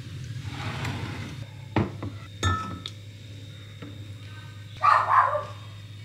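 Soft scraping of a spatula through whipped cream in a glass bowl, then two sharp clinks of glass about two and two and a half seconds in, and a louder short burst about five seconds in, over a steady low hum.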